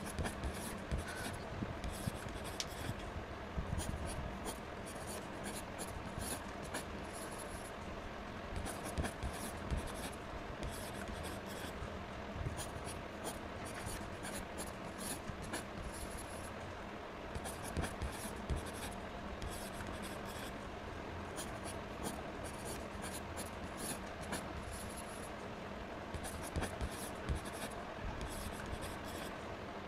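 Pen nibs scratching on drawing paper in short bursts of strokes with pauses between: a chisel-tip marker colouring in, and later a fine black pen drawing lines.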